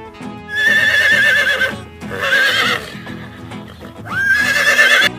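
A horse whinnying three times, each a high, quavering call of about a second, over background music.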